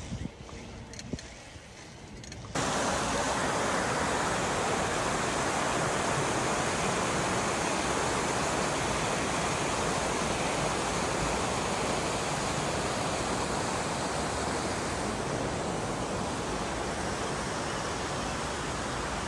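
Shallow river rushing over rocks and rapids: a steady, even rush of water that starts abruptly about two and a half seconds in.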